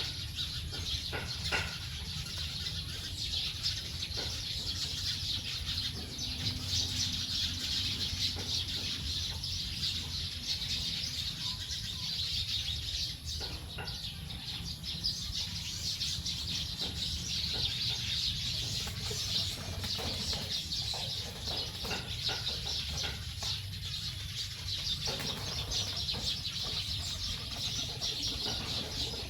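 A large flock of birds chattering at their evening roost: a dense, continuous mass of overlapping high chirps, with scattered short sharp clicks through it.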